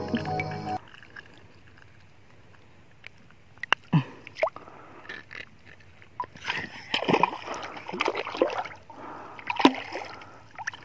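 Water splashing and sloshing in irregular bursts at the side of a small boat from about four seconds in, as a freshly caught fish is handled at the surface.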